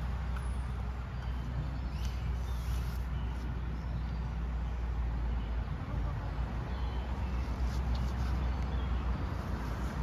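Steady low rumble of road traffic, with birds giving short high chirps now and then over it.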